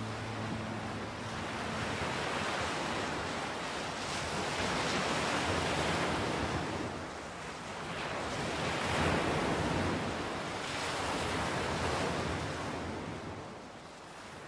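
Sea waves washing in, a steady rush of surf that swells and eases every few seconds.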